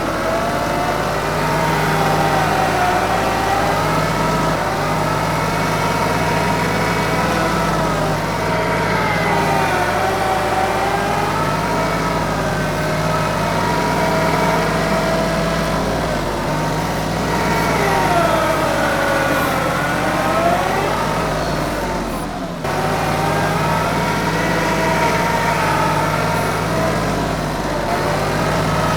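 TYM 2515H compact tractor's diesel engine running under load while pushing dirt, with a whine that rises and falls in pitch over and over. A short dip about two-thirds of the way through.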